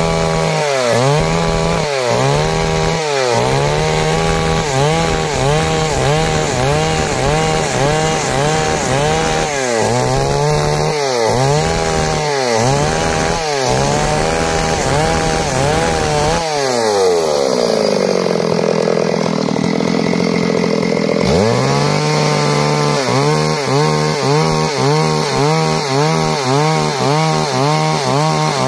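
Stihl MS 382 two-stroke chainsaw ripping lengthwise through a log, its engine speed rising and falling in quick repeated surges as it cuts. About halfway through, the revs drop for a few seconds, then climb back up and the surging carries on.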